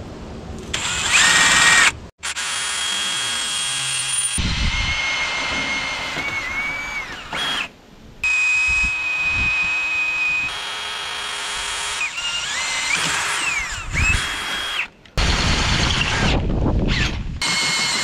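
DeWalt 20-volt cordless drill boring holes through a steel bracket plate. It runs in several long stretches with brief stops, and its whine rises and falls in pitch.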